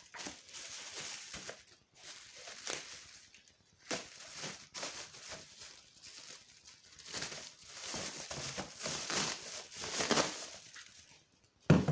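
Plastic packaging crinkling and rustling in irregular bursts as items are handled and unwrapped, with scattered small clicks and one sharp knock near the end.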